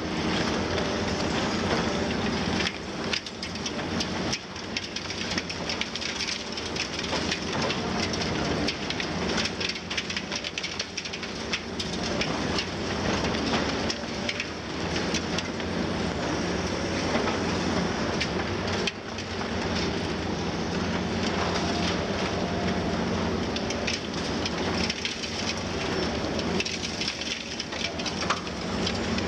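Heavy diesel demolition excavators running steadily under load, with continuous crackling and crunching of concrete and masonry breaking off and falling as rubble.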